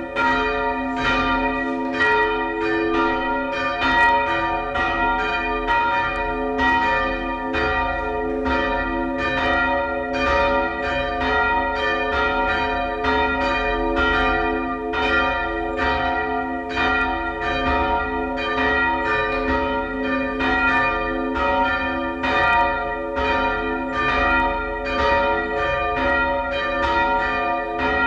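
Two church bells swung by hand with ropes, ringing together in a steady stream of overlapping strikes, about two a second, each tone ringing on under the next.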